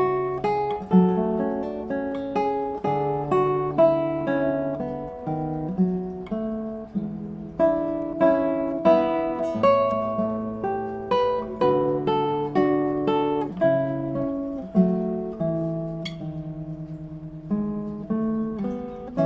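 Acoustic guitar music: plucked notes and chords played in a steady rhythm.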